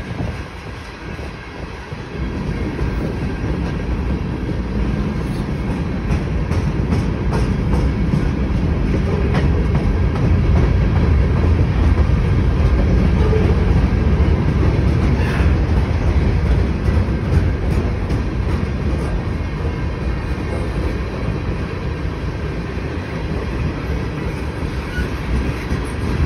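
Loaded freight cars of a CN train (tank cars, a covered hopper, a centerbeam lumber car) rolling past: a steady, heavy rumble of steel wheels on rail that grows louder about two seconds in and stays strong to the end.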